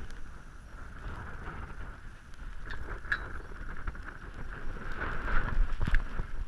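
Handling noise from a GoPro in its housing hanging from a pitbull's neck: rubbing, bumping and scattered soft knocks as the dog moves about, growing louder about five seconds in.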